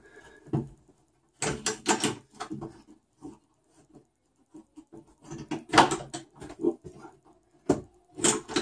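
Clusters of short clicks and knocks from a small metal tie-down bracket being fitted and worked at the edge of a fiberglass hatch, coming in three or four bunches with quiet gaps between.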